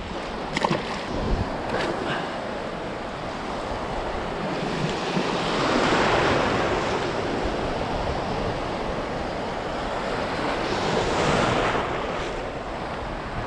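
Ocean surf washing and breaking around a wader standing in shallow water, with wind on the microphone. The wash swells up about halfway through and again near the end.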